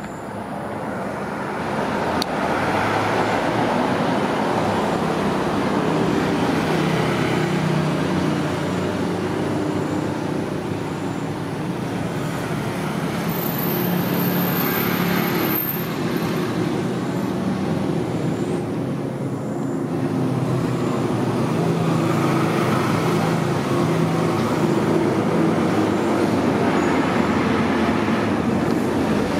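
Heavy diesel trucks driving past on a highway: engines running under load with tyre and road noise, the sound building over the first couple of seconds as they approach, then staying steady.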